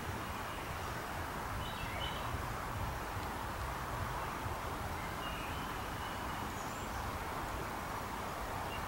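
Outdoor ambience in woods: a steady background hiss with a few faint, short bird chirps, heard about two seconds in, again around five seconds and near the end.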